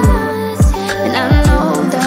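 Background music: an R&B-style pop track with a steady beat of deep bass hits that fall in pitch, and a melody over it.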